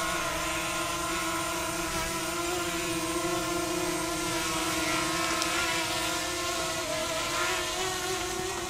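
DJI Mavic Mini drone's propellers buzzing steadily as it hovers, with a brief dip and rise in pitch about seven seconds in.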